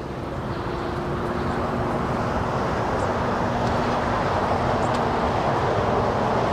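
Jet airliner engines, a steady rushing noise that slowly grows louder, with faint steady tones running under it.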